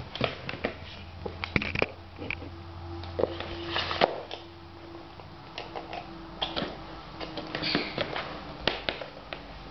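Handling noise with scattered clicks and knocks as a hair dryer's plug is pushed into a wall socket, the sharpest click about four seconds in. The hair dryer itself is not running.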